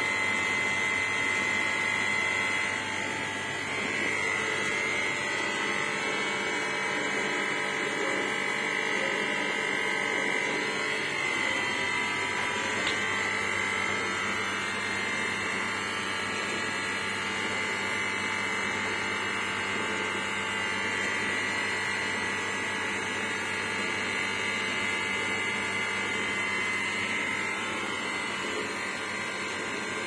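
Steady electric buzzing hum with a thin, high whine held at nearly one pitch over it.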